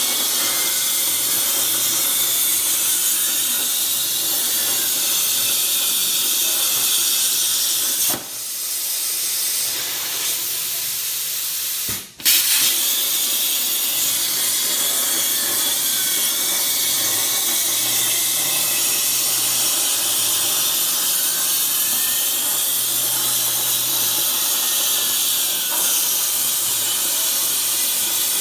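Plasma torch of a Baileigh PT-22 CNC plasma table cutting steel plate: a loud, steady hiss of the arc and cutting air. It dips about eight seconds in and cuts out briefly about twelve seconds in, coming back with a sharp crack.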